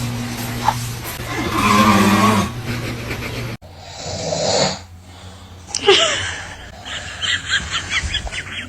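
A man snoring loudly, with long rasping breaths. About three and a half seconds in, the sound cuts abruptly to a quieter stretch of short scattered sounds, ending in a quick rhythmic patter.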